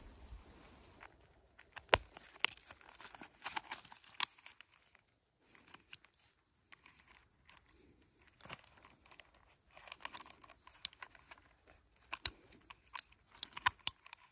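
Scattered sharp clicks, snaps and crinkling rustles of hands handling gear among leafy twigs, with one loud crack about two seconds in. Toward the end come small metallic clicks as a Leatherman multitool is unfolded.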